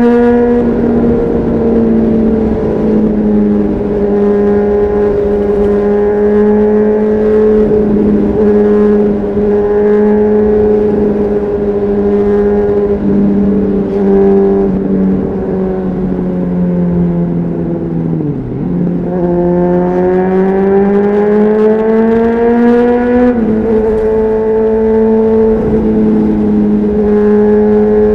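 Honda CBR600RR's inline-four engine through an aftermarket Leo Vince exhaust under way, holding mostly steady revs. It dips as the bike slows about 18 seconds in, then climbs for a few seconds before the pitch steps down with an upshift about 23 seconds in.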